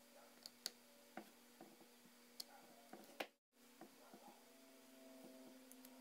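Faint scattered clicks and taps of small parts and tools being handled during iPhone 4S reassembly, over a steady low hum. The sound cuts out completely for a moment about three and a half seconds in.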